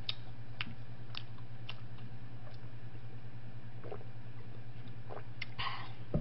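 Faint chewing and a sip from a glass of soft drink, with a short gulp near the end, over a steady low hum. Light clicks come about every half second in the first couple of seconds.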